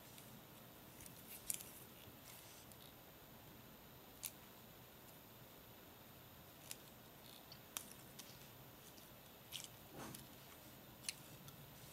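Near silence, with about half a dozen faint clicks and ticks as braided fishing line and leader are handled and pulled snug into half hitches.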